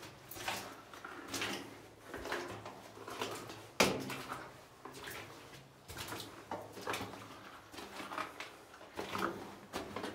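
Footsteps crunching and scuffing on the rocky floor of a mine tunnel, about one step a second, with one sharp knock a little under four seconds in.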